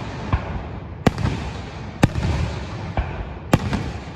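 Fireworks shells bursting overhead: about five sharp bangs in four seconds over a continuous low rumble and crackle.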